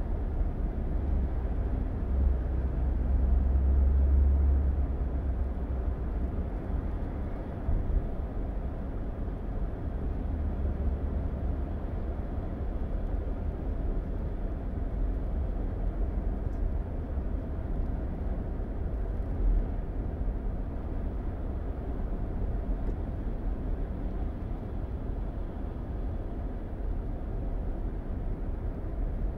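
A car driving at highway speed, heard from inside the cabin: a steady low rumble of road and engine noise, a little louder a few seconds in.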